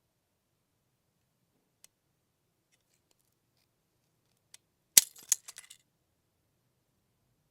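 Mousetrap snapping shut: one loud, sharp snap about five seconds in, followed by a quick rattle of smaller clicks lasting under a second as the trap settles. A couple of faint clicks come before the snap.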